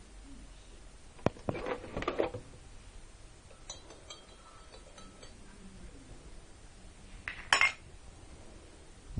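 Metal teaspoon clinking and ringing against a china mug as milk is stirred into coffee, with louder clatters about two seconds in and again near the end.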